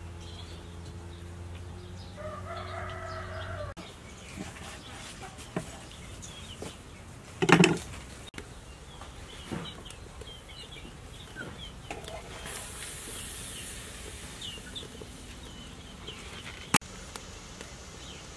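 Farmyard chickens: a rooster crows about two seconds in, and chickens cluck and cheep with short high chirps through the rest. A loud short noise cuts in about seven and a half seconds in, and a sharp click comes near the end.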